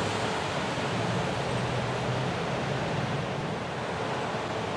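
Front-loader garbage truck driving past close by: its diesel engine runs with tyre and road noise in a steady low rumble that eases a little as it moves off.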